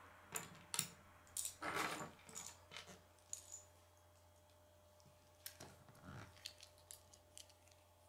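Small plastic K'nex pieces clicking and clattering as they are handled. A string of sharp clicks comes thickest in the first three seconds, then fainter, scattered clicks follow from about five seconds in.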